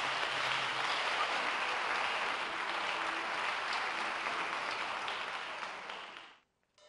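Concert audience applauding, a dense steady clapping that thins a little near the end and then cuts off abruptly.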